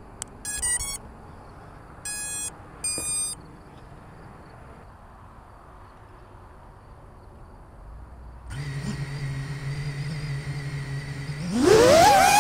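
A few short electronic beeps in the first few seconds. About eight and a half seconds in, the brushless motors of a GepRC Cinelog 35 cinewhoop drone start spinning at a steady idle once armed. Near the end their whine rises steeply in pitch and loudness as the throttle comes up for takeoff.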